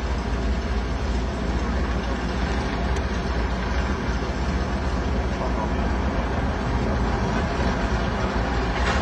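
Boeing C-17 Globemaster III flying low past, its four turbofan engines giving a steady jet noise with a deep low rumble.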